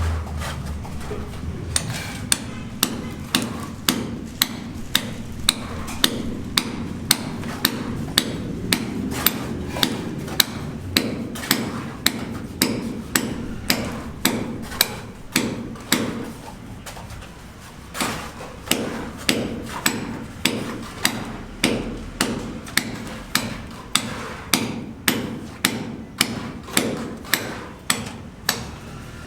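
Hammer blows striking in a steady rhythm, about two a second, with a short break about two-thirds of the way through.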